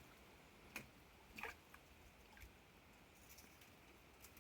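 Near silence, with three faint brief ticks in the first half.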